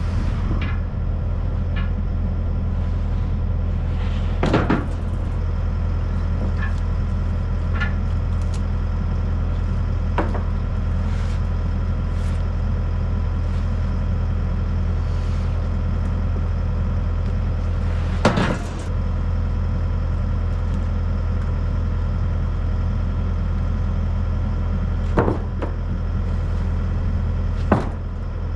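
An engine running steadily, a constant drone, with about five sharp knocks spread over it, the loudest a little past the middle.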